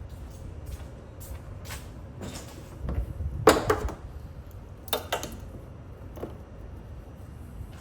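Scattered knocks and clatter of objects being handled, loudest about three and a half seconds in and again about five seconds in, over a steady low rumble.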